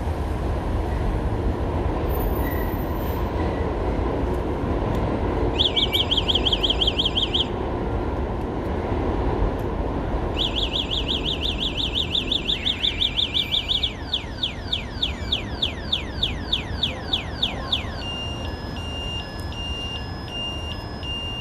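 Boyueda electric scooter's stock anti-theft alarm going off in a car-alarm-style cycle: a fast warble about five seconds in, the warble again from about ten seconds, then a string of falling chirps, then repeated alternating beeps. Decent but not that loud, over a steady low background rumble.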